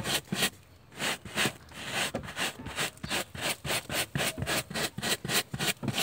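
Stiff hand brush scrubbing sand across a car's floor carpet and ribbed rubber floor mat, in quick back-and-forth strokes about four or five a second, with a brief pause near the start.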